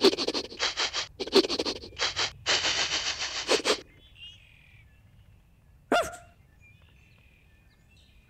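Dog sniffing hard in quick repeated snuffles, in several bursts over about four seconds. Then faint bird chirps and a short sharp sound about six seconds in.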